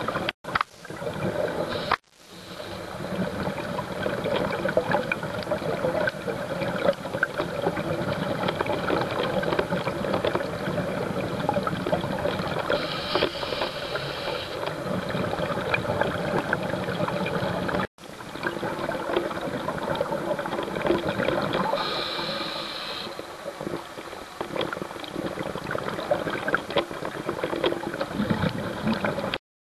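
Underwater sound picked up by a diver's camera: a steady crackle and gurgle of scuba exhaust bubbles, with two brief hisses partway through. The sound drops out briefly twice where the footage is cut.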